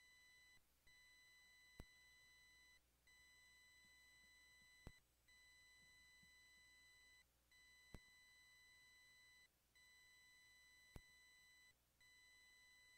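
Near silence with a faint, steady high-pitched electronic tone that drops out briefly about every two seconds, and a faint click about every three seconds.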